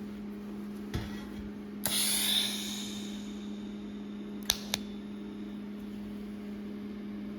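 TIG arc striking for a tack weld on stainless steel tube: a hissing, crackling burst lasting about a second, with a click before it and two sharp clicks a few seconds later, over a steady low hum.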